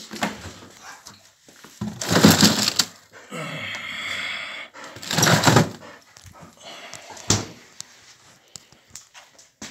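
Chest freezer drawer being pulled open and pushed shut, with bags of frozen food rustling and scraping twice, a drawn-out squeal between them, and a sharp knock about seven seconds in.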